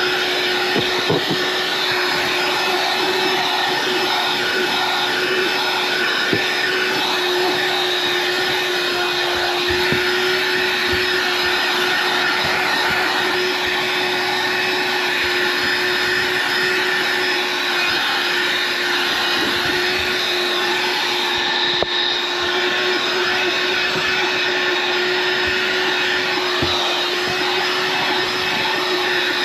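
A 20-volt cordless handheld vacuum running steadily, a constant motor whine over rushing air, with occasional faint ticks.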